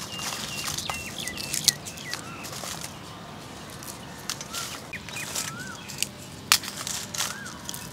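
Outdoor birdsong: birds calling with short whistled notes and small rising-and-falling calls, over a few sharp clicks, the loudest about a second and a half in and again near six and a half seconds.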